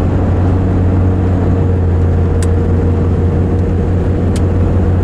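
Inside the cabin of a 1996 Chevy G30 van cruising loaded on the road: a steady low drone of engine and road noise, with a few faint ticks.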